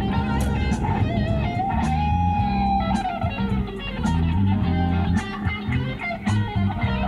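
Music led by electric guitar, with a bass line under it and a steady beat.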